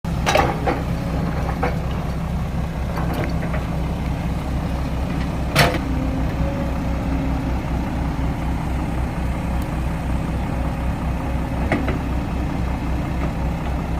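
Heavy diesel engine of earthmoving machinery running steadily with a low, pulsing rumble, with a few sharp knocks, the loudest about five and a half seconds in.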